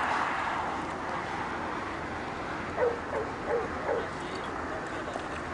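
Search-and-rescue dog barking at the sealed freezer that hides a person, a bark alert that signals a found victim: four quick barks about three seconds in and one more at the end, over a steady hiss.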